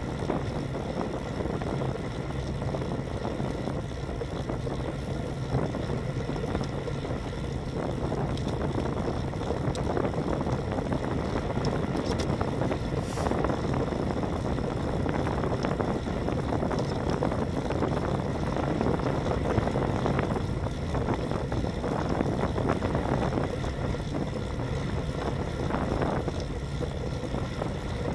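Steady wind rush and road noise on the microphone of a handlebar-mounted Cycliq Fly12 CE bike camera while a road bike is ridden at about 30 km/h.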